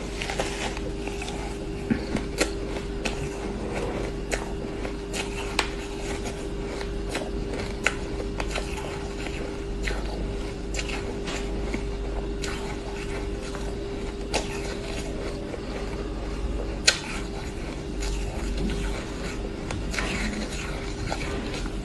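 Shaved ice being scooped with a metal spoon and eaten: irregular short crunches and clicks, a few each second at most, over a steady hum.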